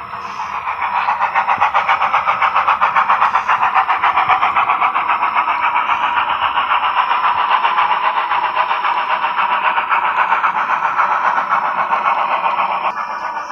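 Steam locomotive exhaust chuffing from a Soundtraxx Tsunami DCC sound decoder, played through the small speaker in an HO scale 2-8-2 Mikado model as it runs. The chuffs come fast and even, swelling in loudness about a second in.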